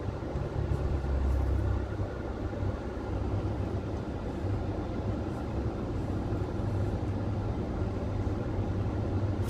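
Steady low rumble and hum inside a car's cabin.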